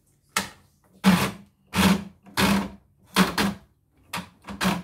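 Opened-up CNY E900 embroidery machine running in a series of short mechanical bursts, about one every two-thirds of a second, each with a low motor tone underneath.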